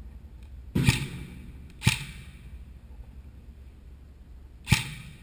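Three single shots from an airsoft gun, each a sharp crack. The first two come about a second apart and the third follows nearly three seconds later.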